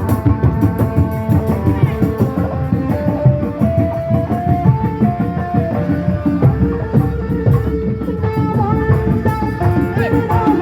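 Kuda lumping accompaniment music: hand drums beat a fast, driving rhythm under a melody of held notes that slide between pitches.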